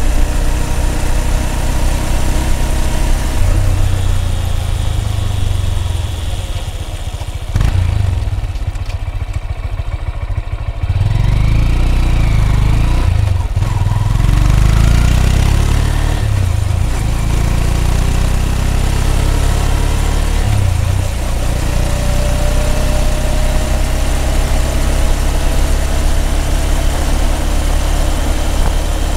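Honda CB200X's air-cooled single-cylinder engine and exhaust on the move. About seven seconds in the throttle eases off and the exhaust drops to a slow, pulsing beat. About eleven seconds in it picks up again with a rising note and settles into a steady cruise.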